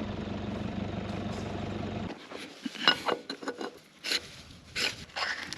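A vehicle engine idling steadily, which cuts off abruptly about two seconds in. It is followed by scattered clicks, knocks and rubbing sounds.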